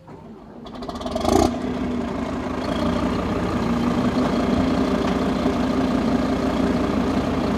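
Patria 6x6 armoured vehicle's five-cylinder Scania diesel engine starting up, catching with a brief rev about a second in, then running steadily.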